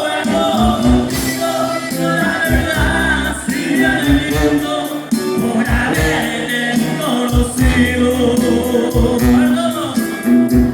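Norteño band music with a steady bass beat.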